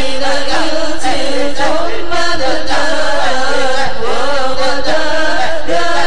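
Arabic sholawat, a devotional chant in praise of the Prophet, sung by a congregation's voices to a slow melody that glides and wavers on long held notes.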